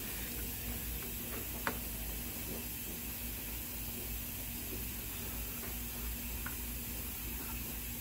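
A few light clicks and taps from handling the mower's belt and idler pulleys, one sharper click about a second and a half in, over a steady low hum and hiss.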